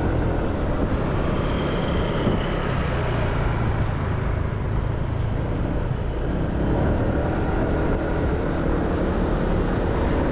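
Steady low rumble of motor vehicles running, like street traffic.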